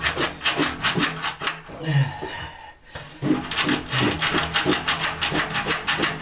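Rubber plunger being pumped quickly on a clogged bathtub drain, squelching and slurping with each stroke, with a short break about two seconds in before the strokes resume.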